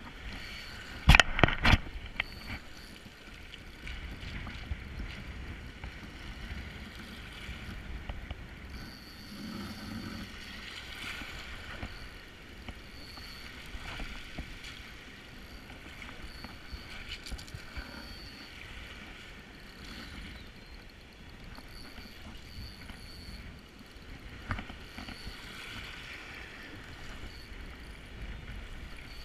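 Wind buffeting the microphone over lapping water while a Daiwa Certate spinning reel is wound, with a quick cluster of sharp clicks about a second in.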